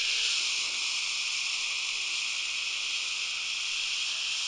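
A steady, high-pitched hiss like white noise, even throughout and cutting off suddenly just after the end.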